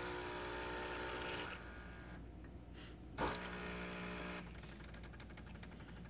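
Jura Z10 superautomatic espresso machine's pump running faintly in pulses while brewing a cold coffee. A steady hum stops and starts again, with a short click about three seconds in, and then fades to a fainter rapid pulsing. The pump is working less hard than it does for hot drinks.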